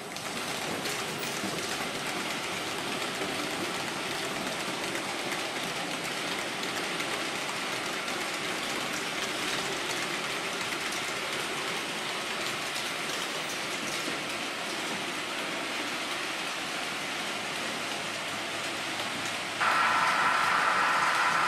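H0-scale model train, a diesel locomotive hauling a long rake of refrigerator wagons, rolling along the track with a steady, dense rattle of small wheels on rail. Near the end a louder sound with a steady whine comes in abruptly.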